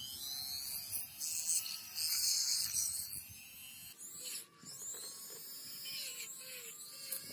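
Handheld rotary tool running at high speed with a small bit pressed against a vintage oil lighter's metal body. It makes a high whine that wavers up and down in pitch as the bit bites and eases off, with a brief drop about four and a half seconds in.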